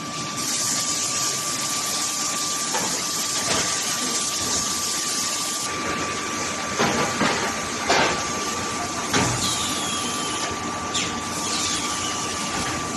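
Forging-line machinery running: steady heavy plant noise with a constant high whine, a hiss that stops about halfway, and a few knocks from about three and a half to nine seconds in, as hot steel bars travel from the induction bar-heating furnace to the roll forging machine.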